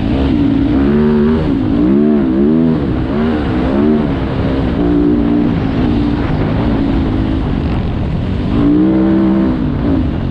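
Dirt bike engine revving up and down again and again as the throttle is worked, over a steady low rumble of riding noise.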